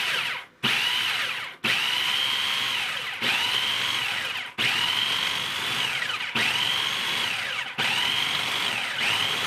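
Food processor motor run in repeated short pulses, about seven of them, each spinning up to a high whine and winding down before the next. The blade is mixing Oreo cookie crumbs with butter and sweetened condensed and evaporated milk into a thick cookie-butter paste.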